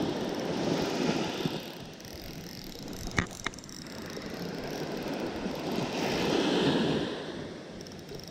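Small waves washing up onto a sandy shore, swelling twice and ebbing between, with two sharp clicks close together about three seconds in.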